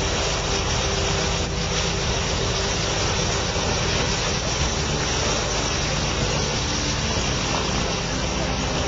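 An engine running steadily at an even speed, with no rise or fall in pitch or loudness.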